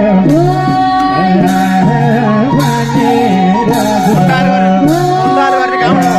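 Nepali folk dance music: a sung melody over a steady drum beat, with a bright percussion stroke about once a second.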